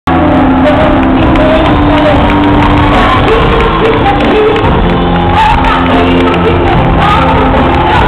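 Live gospel band and singers performing, loud and recorded from among the audience, with the crowd shouting and singing along.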